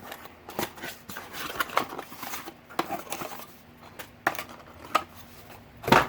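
Hands opening the packaging of a small Bluetooth audio adapter without a knife: irregular rustling, scraping and clicks of box and wrapping, with one louder sharp knock near the end.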